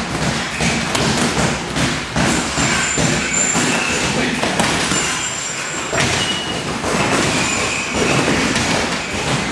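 Boxing gloves thudding as punches land on gloves, arms and headgear during sparring, repeated irregularly over a steady din of gym noise.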